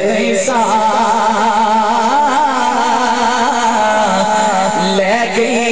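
A man reciting a naat: one voice singing long, held, ornamented notes whose pitch wavers and slides, without a break.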